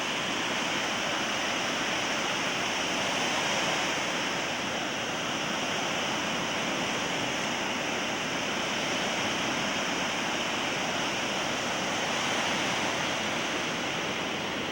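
Rough Pacific Ocean surf, breaking waves and rushing water making a steady wash of noise.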